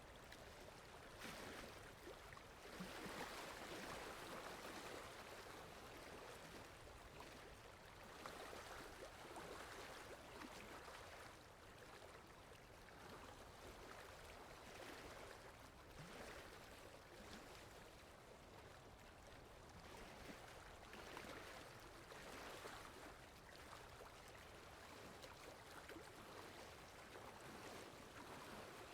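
Faint water lapping at the edge of a lake, a soft splashing hiss that swells and fades every few seconds.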